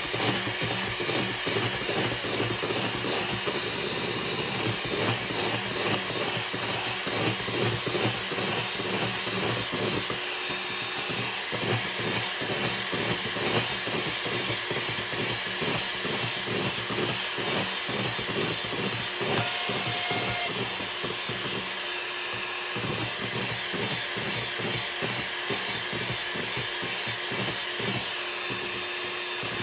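Electric hand mixer running steadily, its beaters whipping egg whites into meringue in a stainless steel bowl, beaten toward stiff peaks.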